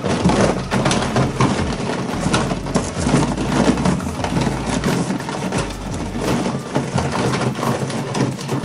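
A hand rummaging through a cardboard box full of plastic blister packs: continuous crackling and clattering of plastic packs rubbing and knocking against each other and the cardboard.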